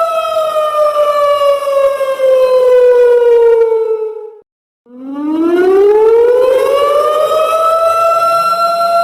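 A siren wailing slowly: a held tone glides down over about four seconds, cuts out briefly about halfway, then climbs back up over the next three seconds and holds steady again.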